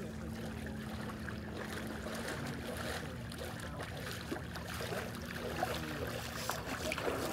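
Shallow lake water sloshing and lapping as a person wades through it toward the shore, with small splashes from the legs growing louder near the end.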